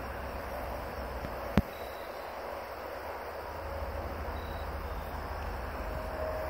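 Many honey bees buzzing as they fly around and land on an open tub feeder of 1:1 sugar syrup, over a steady low rumble. A single sharp click about a second and a half in.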